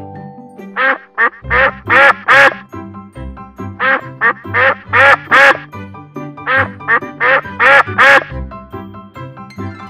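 A duck quacking over and over in quick runs of two or three quacks, then stopping about eight seconds in.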